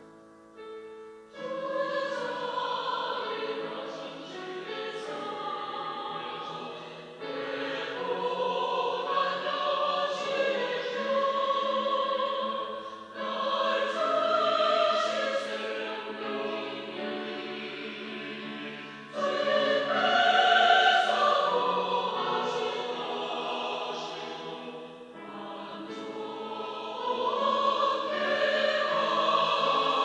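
Mixed church choir of men's and women's voices singing a Sunday anthem, coming in about a second and a half in and going on in full, sustained phrases.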